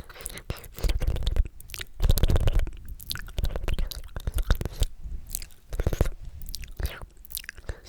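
Sticky, wet mouth sounds close to the microphone: rapid clicks and pops of the tongue and lips, loudest in two dense runs about one and two seconds in.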